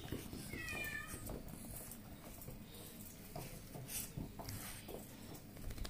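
A frightened puppy whimpering: one short, high-pitched whine that drops slightly in pitch, about a second in. After it, a few faint clicks of claws on the stainless-steel exam table.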